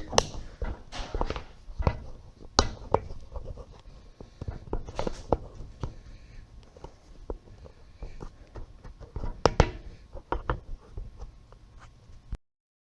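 Irregular handling clicks, knocks and light scrapes of hands working with hard objects, with a louder cluster of knocks about three-quarters of the way through; the sound cuts off abruptly to dead silence near the end.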